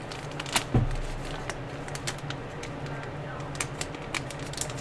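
Scattered light clicks and rustling of small water-cooling parts and their plastic packaging being handled on a tabletop, with a soft knock about a second in, over a low steady hum.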